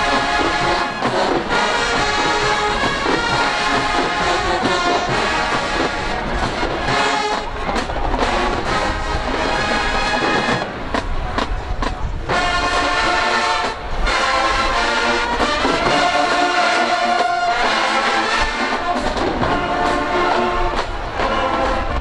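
Marching band playing a brass-heavy tune at full volume.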